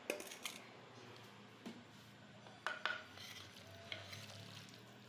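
Wooden spoon scooping chopped onion from a stainless-steel bowl into a wooden mortar and stirring it with the meat: a few faint, scattered knocks and clicks of spoon against bowl and mortar.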